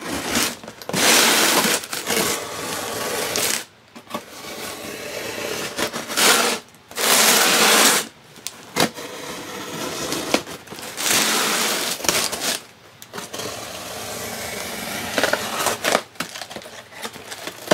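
Utility knife blade slitting the packing tape and cardboard of a shipping box, in several long cuts a few seconds each, with the box being handled and turned between them.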